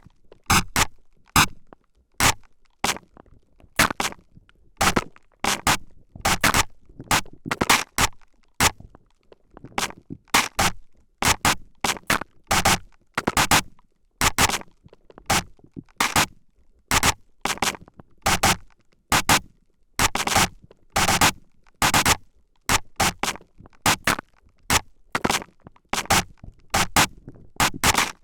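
Spray bottle squirted again and again straight at a microphone's ears: short bursts of spray, one to three a second in an uneven rhythm, each stopping sharply.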